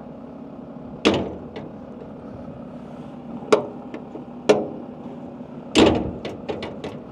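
The John Deere 240D excavator's steel engine-compartment side door being swung open and banged shut, with four sharp metallic strikes, the fourth the loudest, followed by a few light latch clicks. It is being tested after its dent was pulled out, and it latches properly.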